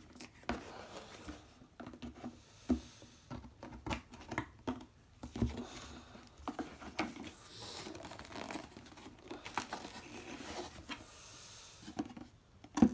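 Scissors cutting through a cardboard shoebox: irregular snips and clicks, with the cardboard crackling and rustling as it is handled.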